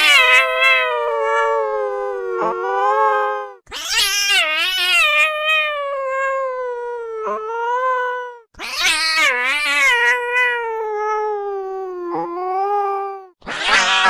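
Angry cat yowling: a run of long, drawn-out wails, each beginning harsh and then wavering as it slowly drops in pitch, with short breaks between them. A new yowl starts near the end.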